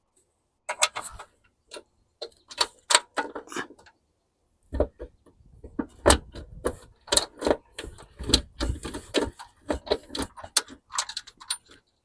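Irregular metal clicks, clinks and light knocks of mounting bolts and washers being handled and started by hand into a lawnmower engine and its steel deck, sparse at first and busier from about the middle on.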